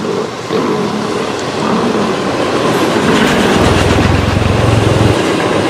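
Double-stack container freight train rolling past, with the steady noise of its wheels on the rails. It grows louder about three seconds in, with a deep rumble for a couple of seconds.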